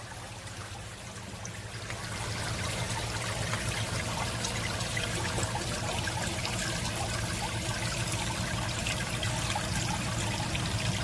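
Aquarium water trickling and pouring steadily into the tank, with a low steady hum underneath; it grows louder about two seconds in, then holds steady.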